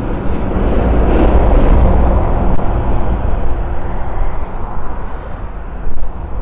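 A motor vehicle passing along the street: a broad rumbling rush that swells about a second in and fades away over the next few seconds. A brief bump sounds near the end.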